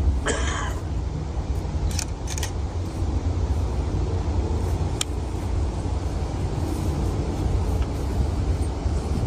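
Wind rumbling on the microphone, with a brief rustle just after the start and a few sharp clicks.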